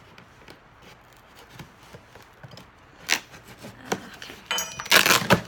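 Cardboard shipping box being opened by hand: light taps and scrapes, then two sharp rips, and near the end a loud tearing rasp about a second long.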